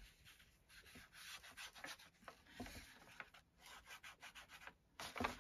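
Faint, irregular scratchy rubbing strokes of a small ink dauber being dabbed on an ink pad and swiped along the edges of a paper page.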